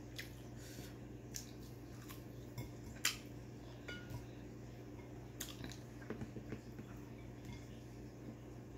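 Scattered light clicks and taps of fingers and food against a ceramic plate while eating rice and fried pork by hand, the sharpest click about three seconds in, over a low steady hum.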